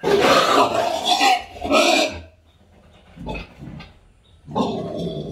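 A sow squealing loudly for about two seconds as she is given an injection in the neck, then a shorter, quieter call near the end.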